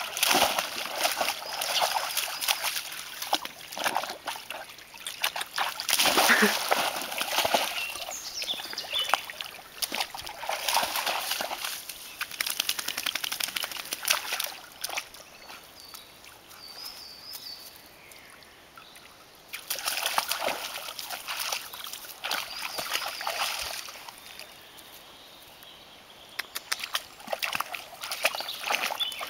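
An Appenzeller Sennenhund splashing through shallow pond water in repeated bouts, water sloshing and spraying as it runs and jumps, with quieter stretches in between.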